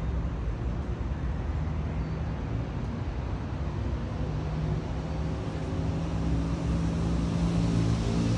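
Steady low engine hum over a background rumble, strengthening from about halfway through and growing a little louder toward the end.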